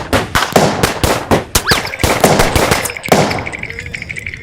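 Action-cartoon fight sound effects: a rapid volley of loud bangs, about three or four a second, that stops about three seconds in, leaving a fluttering high-pitched hum that fades out.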